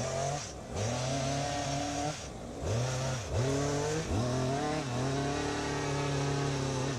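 Small two-stroke engine of an ECHO pole saw (power pruner) running at high revs and being throttled, its pitch dropping sharply about four times and climbing straight back.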